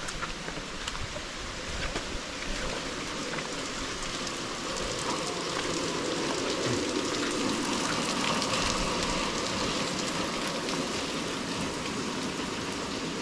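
Steady rain falling, growing a little louder about four seconds in.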